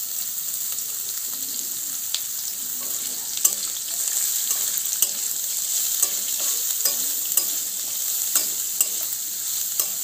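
Carrots and onions sizzling in hot oil in a metal kadai, with a metal spatula scraping and clinking against the pan as they are stir-fried. The clinks come irregularly from about two seconds in.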